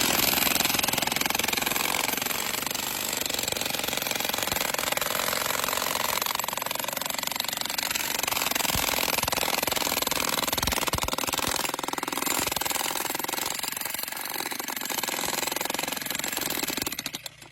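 Jackhammer breaking into shale rock with rapid, continuous hammering that stops abruptly just before the end.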